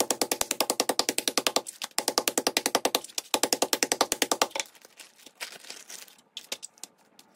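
Metal meat tenderizer mallet pounding pork chops sealed in a plastic zip-top bag on a plastic cutting board, flattening and tenderizing the meat: a fast, even run of blows, about nine a second, in three bursts, stopping about four and a half seconds in. After that, only a few light rustles and clicks as the bag is handled.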